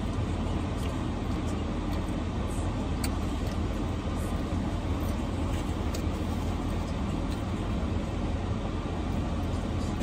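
Steady low rumble heard inside a stationary car's cabin, with a few faint light clicks.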